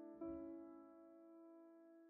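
Soft, quiet piano music: a chord struck about a quarter second in, ringing and slowly fading.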